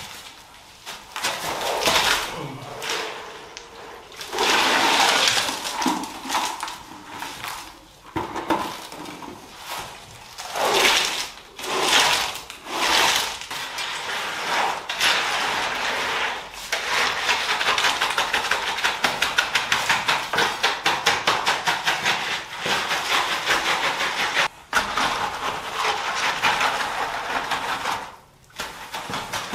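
Hand tools scraping and knocking in wet concrete as it is mixed and worked for a shower slab. Irregular scrapes at first, then a fast, even run of strokes for about ten seconds from a little past halfway.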